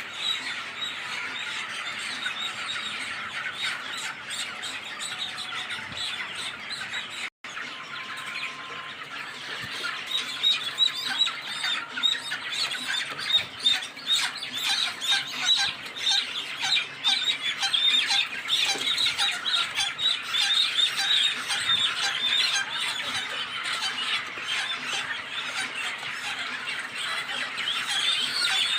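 A crowded flock of near-market-age broiler chickens in a poultry house: many birds squawking and cheeping at once in a dense, continuous din. It cuts out for an instant about seven seconds in and grows busier, with sharper calls, from about ten seconds on.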